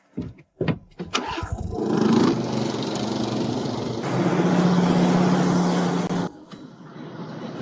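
Boat engine starting: a few short knocks, then it catches and runs with a steady hum before cutting off abruptly about six seconds in.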